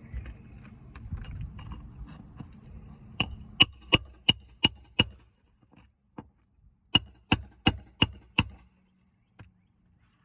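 Nails being driven into asphalt roof shingles: two quick runs of sharp, ringing strikes, about six then five, roughly three a second.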